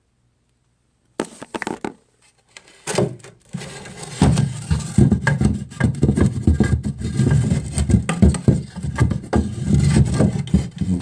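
Irregular knocks and scraping, with a rumbling rub of handling noise close to the microphone that starts about three seconds in and runs densely to the end.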